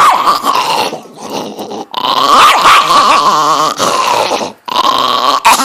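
A dog growling in long, loud stretches with brief breaks about two seconds in and again near the end: a hostile growl from a dog that dislikes the one it faces.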